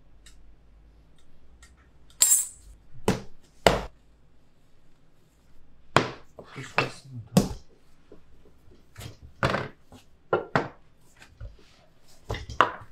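Irregular sharp knocks and clinks, about a dozen, of a metal dough blade or scraper against the worktable as a large round of dough is cut and shaped, with soft handling noise in between.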